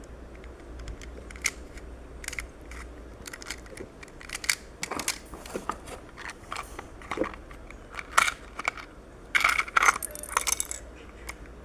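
Irregular crinkling and sharp clicks of plastic packaging being handled and opened, with a denser cluster of crackling near the end.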